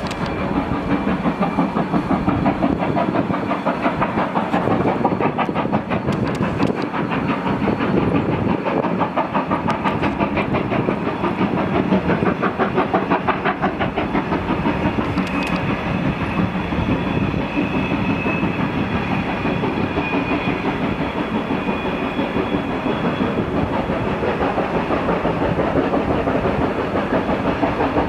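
Steam locomotive 50 3501, a DR class 50.35 two-cylinder 2-10-0, working steadily with its train: a continuous run of fast, even exhaust beats.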